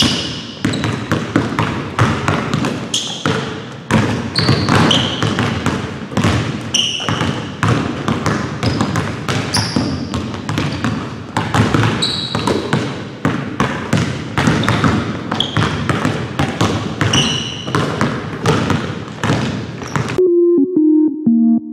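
Basketballs bouncing on a hardwood gym floor in quick, irregular knocks, mixed with short high squeaks of sneakers. About twenty seconds in, the gym sound cuts off and synthesizer music begins.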